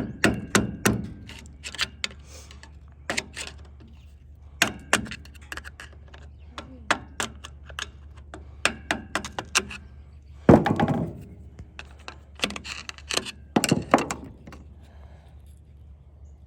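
Irregular sharp metal-on-metal knocks, some with a short ring, and a heavier blow about ten seconds in: hammer strikes working to break loose the inner axle nut on a truck's rear hub.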